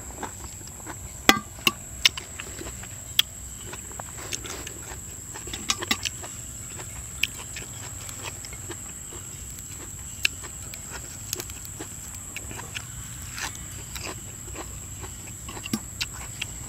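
Close-up eating sounds from a man: chewing and lip-smacking, with a slurp from a spoon at the start and scattered sharp clicks of a metal spoon against the dishes. The clicks are loudest about a second in. A faint steady high whine runs underneath.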